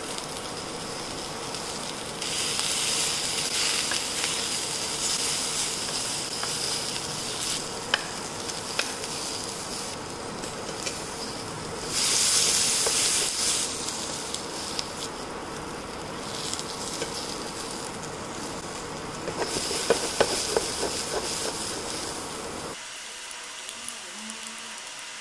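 Sliced zucchini, yellow squash, onion and garlic sizzling in hot oil in a nonstick pan. The sizzle swells louder three times, with a few light clicks as metal tongs turn the pieces.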